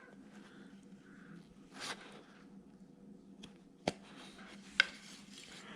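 Faint sounds of a small carving gouge cutting into wood: a short scraping cut about two seconds in, then two sharp clicks a second apart.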